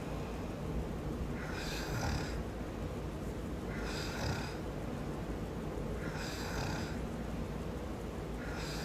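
A man snoring in his sleep, one snore about every two seconds, four in all, over a steady low background hum.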